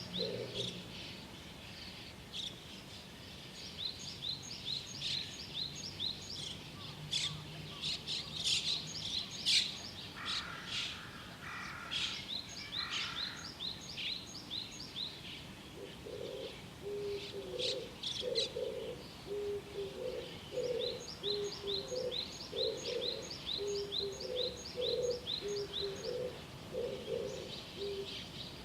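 Small birds singing in a morning chorus, with quick repeated high chirps and trills overlapping. From about halfway through, a low call of two-part coos repeats steadily underneath.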